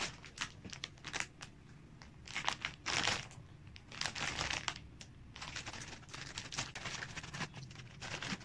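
Packaging crinkling and tearing in irregular bursts as a parcel is opened by hand.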